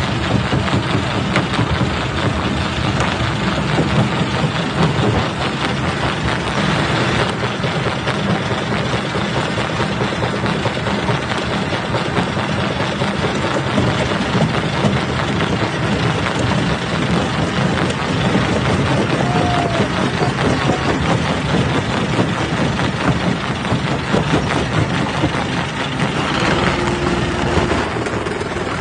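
Jaw crusher running while it breaks rock: a dense, continuous grinding with a constant crackle of small impacts over heavy machine noise. A short steady tone sounds near the end.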